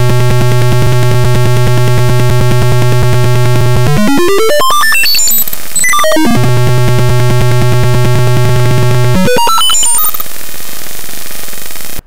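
Simulated piezo buzzer tone from a Tinkercad Arduino circuit, a harsh, loud buzz whose pitch follows the temperature sensor reading. It holds a low buzz, sweeps up and back down about four to six seconds in, holds low again, then climbs near the end to a high, thin tone that cuts off suddenly; the higher the pitch, the higher the temperature sensed by the fire alarm.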